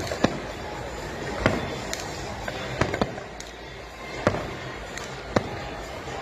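Aerial fireworks shells bursting: about six sharp bangs roughly a second apart over a steady background noise.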